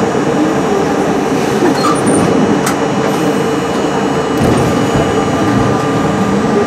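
New York City Subway R-32 train running through a station: steady rail and wheel noise with a whine held over it, heard from inside the front of the car.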